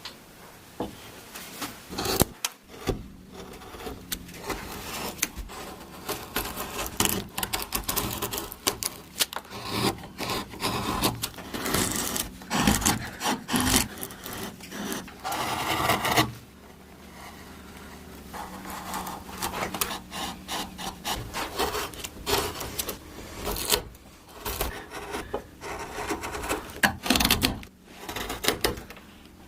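Hand tools working wood: quick, uneven scraping and rubbing strokes against the wood, broken by occasional sharp knocks.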